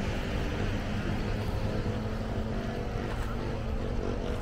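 A steady low engine rumble with a faint hum held underneath.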